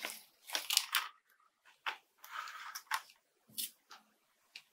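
Clear plastic blister packaging being peeled and pulled away from its cardboard backing, crinkling and crackling in short, irregular bursts.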